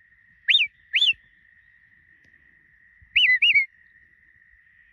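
Sheepdog handler's whistle commands to a working dog: two short sharp rising-then-falling whistles half a second apart, then about two seconds later a quick pair of warbling whistles.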